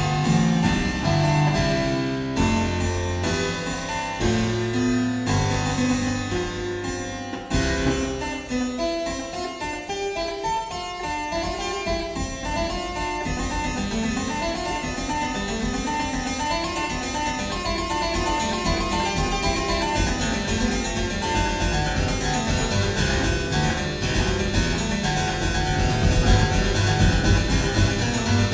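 Keyboard playing an improvised Baroque-style fugue: several independent voices in counterpoint, with the lines growing busier about a third of the way in. The recording is of poor quality, and the instrument comes across with a bright, harpsichord-like tone.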